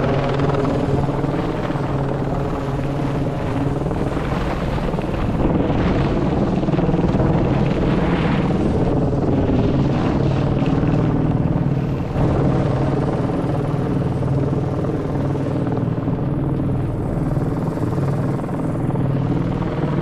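A steady low mechanical drone, like a motor or rotor hum, held at an even pitch under a noisy rush that swells for a few seconds midway.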